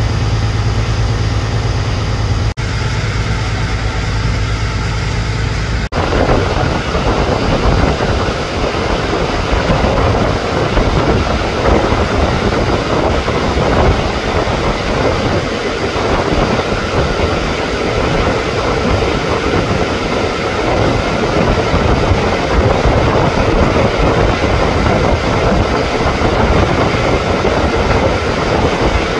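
Fishing boat's diesel engine running steadily under way: a low, even hum for the first few seconds, turning into a rougher, noisier rush from about six seconds in.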